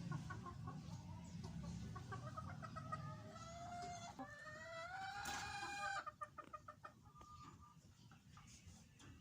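Kelso gamecock (rooster) crowing once, a long crow of about three seconds that starts roughly three seconds in and is the loudest sound, with short clucking calls before and after it.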